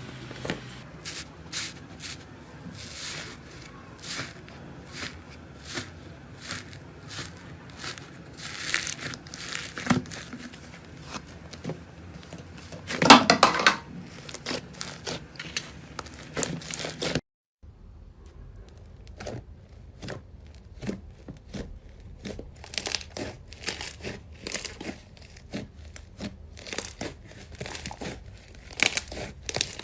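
Slime being squished and pressed by hand, giving a dense run of crackling, clicking pops, with one louder burst a little before halfway. The sound drops out briefly just past halfway, then the same kind of crackling goes on.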